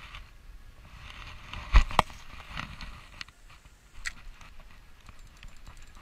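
Spinning rod and reel during a cast and retrieve: a brief rush of noise with two sharp clicks close together about two seconds in, then scattered light clicking as the reel is wound.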